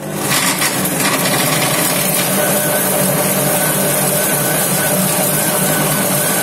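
Cecotec Mambo kitchen robot running its chopping blades at speed 9, mincing raw chicken breast pieces: a loud, steady motor whir with the blades churning the meat, reaching full speed right at the start.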